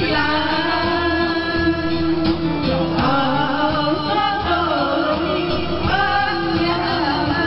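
A pop song with singing and steady instrumental backing, playing continuously.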